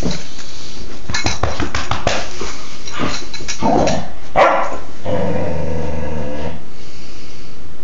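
Doberman pinscher puppy barking in play: several short sharp barks, then a longer drawn-out growling bark about five seconds in.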